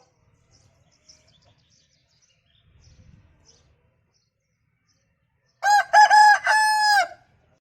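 Aseel rooster crowing once, loud, about halfway through: a few short notes and then a longer held final note. Faint bird chirps before it.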